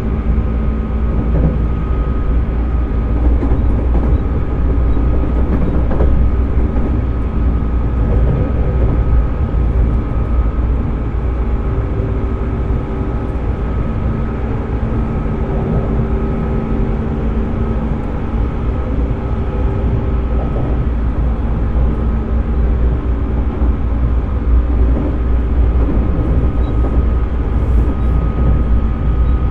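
JR 205-series electric train motor car with externally fan-cooled MT61 traction motors running at a fairly steady speed. A steady motor and gear whine sits over a dense rumble of wheels on rail, with a few faint clicks.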